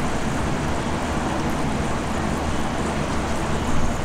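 Steady, even background rumble with a low hum underneath.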